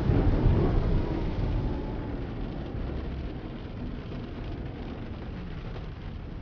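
Thunderstorm with wind and rain: a low rumble, loudest in the first two seconds and dying away, over a steady hiss.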